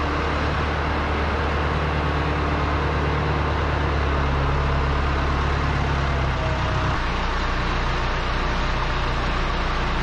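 Ford 7710 tractor's diesel engine idling steadily, its note stepping down a little about two-thirds of the way through.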